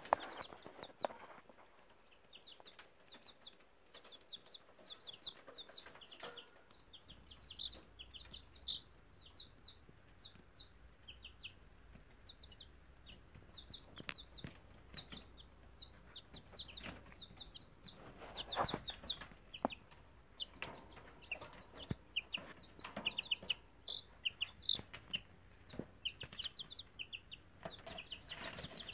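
Baby chicks in a brooder peeping, many short high-pitched peeps in rapid clusters from several birds at once, with scattered sharp taps and knocks.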